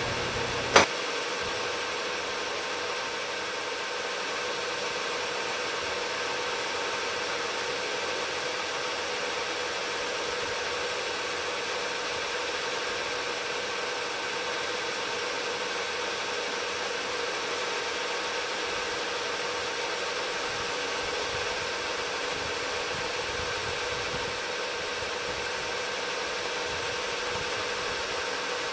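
Knee mill spindle running steadily while an end mill cuts an angled face on a black plastic part, a constant machine hum with a few steady tones. A sharp click sounds about a second in.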